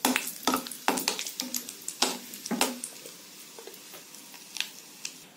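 Cashews sizzling as they fry in hot oil and ghee in a metal kadai, with a metal slotted spoon scraping and clicking against the pan as they are stirred. The stirring strokes come in the first three seconds, with one more click near the end, and the sizzle goes on throughout.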